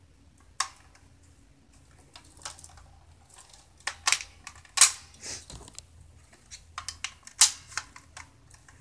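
Plastic blow-dryer brush attachments being handled: one pulled off the dryer and another pushed on, giving a string of irregular sharp plastic clicks and knocks, the loudest about five and seven and a half seconds in.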